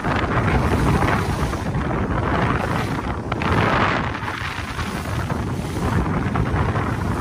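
Wind buffeting the microphone on a moving boat, over the rush of water and spray along the hull, with the hiss swelling twice.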